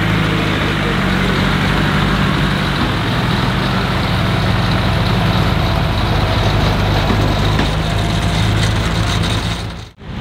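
Off-road 4x4's engine running steadily, its low note shifting a little, under a dense rushing noise; the sound drops out briefly near the end.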